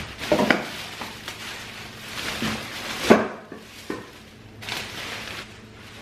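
Plastic grocery bags rustling and being set down on a stone kitchen countertop, with several knocks and clinks from the groceries inside, four of them in the first four seconds, and a longer crinkle of plastic near the end.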